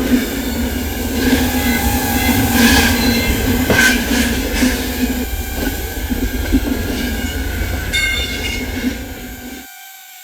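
Train running on the rails with a steady rumble and thin high squealing tones from the wheels. The low rumble cuts off suddenly near the end.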